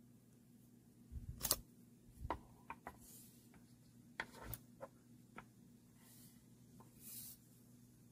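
Faint, scattered small clicks and taps, about nine spread irregularly, with a soft rustle or two: a small Zippo travel watch being handled after its battery change, its caseback just pressed shut.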